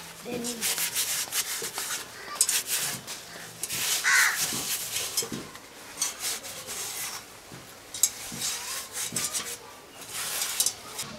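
A cloth rubbing and wiping over a rusty metal stove and its iron stand in quick, irregular scrubbing strokes, with a brief call heard once about four seconds in.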